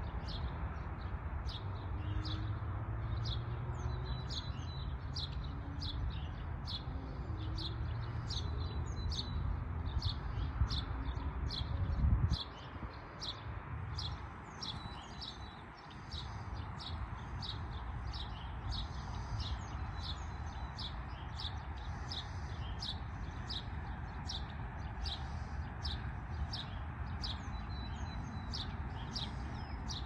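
A songbird calls a short, high note over and over, about one and a half times a second, over a steady background hush. A low rumble underneath ends with a bump about twelve seconds in.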